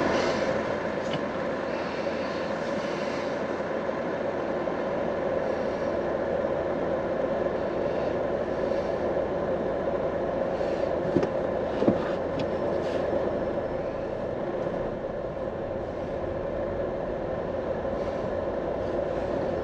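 Steady car and traffic noise while driving in city traffic, with two brief knocks a little past halfway.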